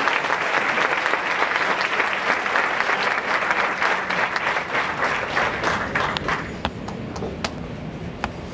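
Audience applauding. The clapping thins out about six seconds in to a few last scattered claps.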